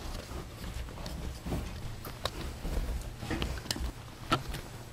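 A kitten scuffling as it bats at and chews a cord on the floor: soft rustling and a few light, scattered clicks over a low rumble.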